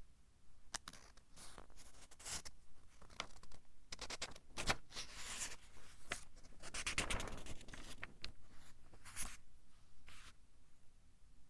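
Pages of a thin-paper book being turned one after another: a series of paper rustles and crisp flicks, busiest and loudest in the middle.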